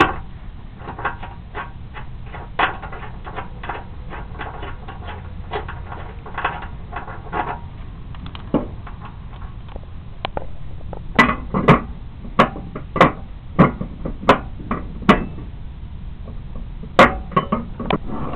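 Metal clicks and clinks of a hand wrench and a new mower blade being worked onto a riding-mower blade spindle. Light, quick clicking comes first, then a run of sharper clacks about two a second starting about eleven seconds in.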